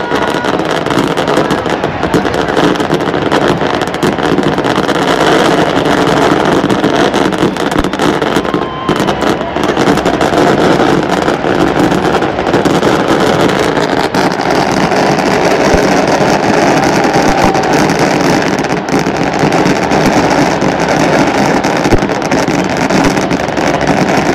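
Large stadium crowd of football supporters cheering and chanting, a loud, steady mass of crowd noise with no break.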